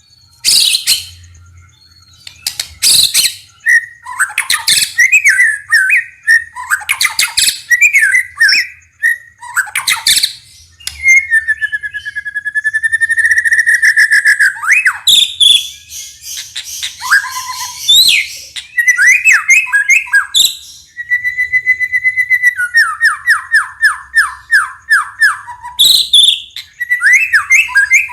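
White-rumped shama (murai batu) singing a long, varied song. It mixes loud whistled phrases, a held wavering whistle about halfway through, harsh rattling calls, and a fast run of repeated notes near the end.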